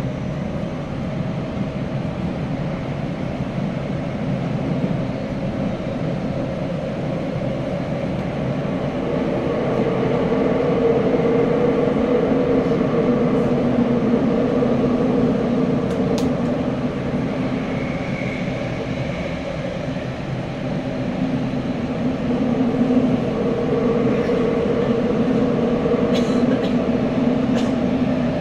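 Tokyo Metro 9000 series subway car running, heard from inside the car: a steady rumble of wheels and traction motors in the tunnel. It grows louder about ten seconds in and again a little after twenty seconds, with a few faint clicks near the end.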